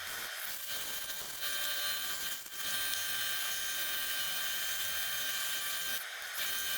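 Small high-speed power tool running with a steady high-pitched whine, cutting out briefly twice.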